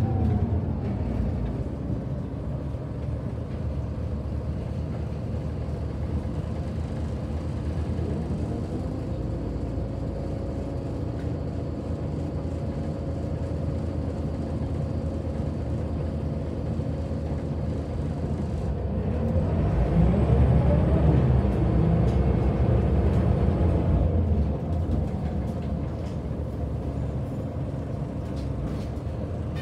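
Scania L94UB bus's diesel engine, heard from inside the passenger cabin while the bus drives. The engine note falls at the start, then runs steadily. About twenty seconds in it grows louder with its pitch climbing, as the bus pulls away, then eases back a few seconds later.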